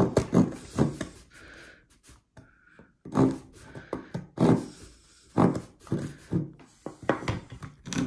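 Diablo reciprocating-saw blade, clamped in the locking pliers of a Leatherman Crunch multitool, drawn back and forth across a wooden tongue-and-groove board by hand. Short sawing strokes come about two a second, with a pause of about two seconds near the start.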